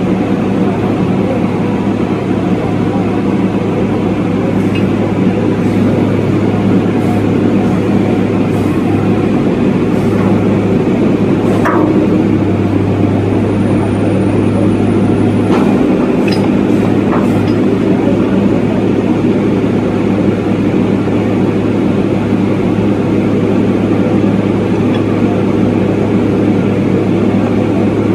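Hydraulic piling rig's engine running steadily, a constant deep drone, while the steel casing pipe is lowered. A few light knocks come through around the middle.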